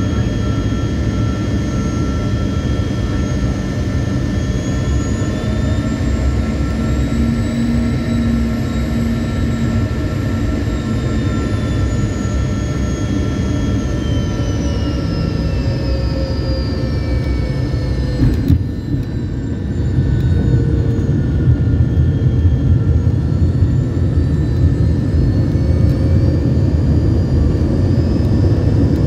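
Cabin noise of a Bombardier Learjet 75's rear-mounted Honeywell TFE731 turbofans on final approach: a steady rush with whining tones that slowly rise and fall in pitch. About 18 seconds in a single knock marks the main wheels touching down, and a louder rumble of the landing roll follows.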